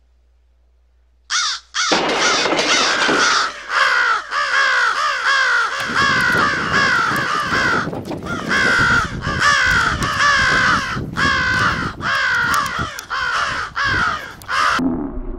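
A flock of birds cawing, many calls overlapping without a break. It starts suddenly about a second in and cuts off abruptly near the end.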